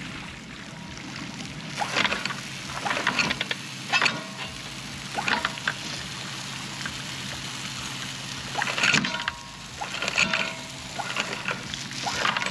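Deck washdown hose spraying a pressurised jet of water onto a stainless steel anchor and the water below, rinsing mud off the freshly raised anchor. The hiss of the spray is steady, with louder splattering surges that come and go as the stream is moved over the anchor.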